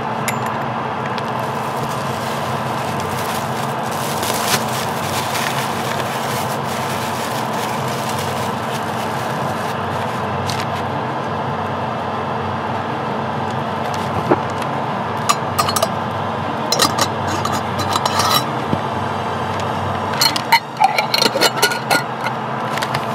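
Steady motor hum with a constant pitch. From about halfway through come light clinks and scrapes of small metal and glass parts, busiest near the end, as an airbrush is taken apart and cleaned.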